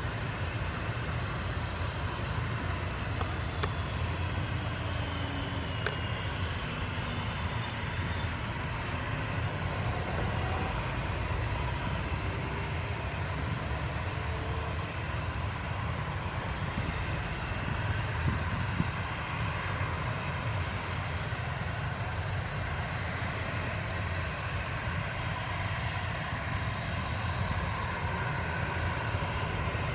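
Boeing 737-800's turbofan jet engines running steadily at low power, a continuous rumble with a faint whine that drifts slowly in pitch.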